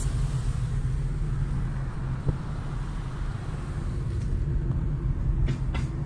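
A car driving, heard from inside the cabin: a steady low rumble of engine and road noise. There is a single light knock about two seconds in and two short clicks near the end.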